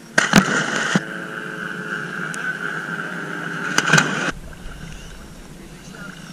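Scuba divers splashing into the sea off a dive boat's stern in giant-stride entries, one just after the start and another about four seconds in, with water slapping against a camera held at the waterline and a steady hum between the splashes.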